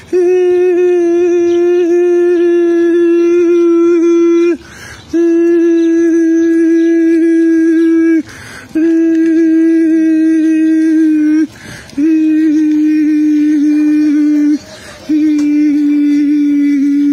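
A man's voice holding long, steady wordless notes, five in a row, each about three to four seconds long with a quick breath between them. The pitch stays level within each note and sinks slightly over the run.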